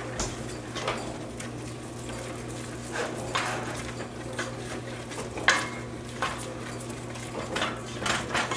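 Wooden spoon stirring a roux, thickened with added flour, in a stainless steel stockpot, knocking and scraping against the pot at irregular moments. A steady low hum runs underneath.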